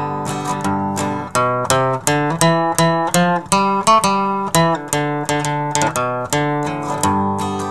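Instrumental break of a country gospel song on plucked acoustic strings: steady strummed guitar chords, with a picked single-note melody taking over from about a second in until near the end.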